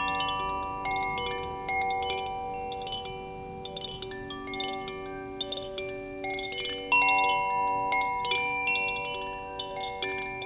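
Koshi chime, a bamboo-tube wind chime, moved by hand so that its clapper strikes the tuned metal rods inside at irregular moments. Its clear notes ring on and overlap, with a louder cluster of strikes about seven seconds in.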